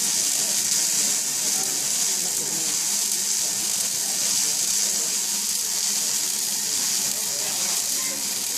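Electric welding arc sizzling steadily: a continuous high hiss with no break.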